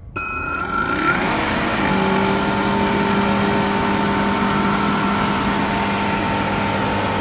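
A Fieldpiece refrigerant recovery machine is switched on. Its motor starts abruptly and spins up over the first couple of seconds, then runs with a steady hum. It is pulling R410A refrigerant out of a condenser into a recovery tank.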